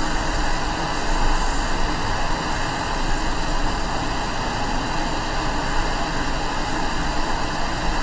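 Quick 861 hot air rework station blowing a steady rush of air from its nozzle at full airflow (100) and 400 degrees, melting the solder under an iPad mini 4 charging port connector so it can be lifted off the board.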